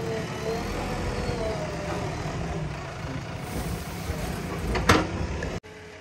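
Backhoe loader's diesel engine running steadily under work, with one sudden sharp knock about five seconds in.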